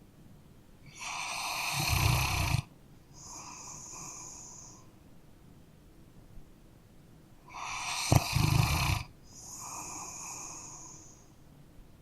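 A sleeping dog snoring: two slow breaths, each a loud buzzing snore followed by a softer breath.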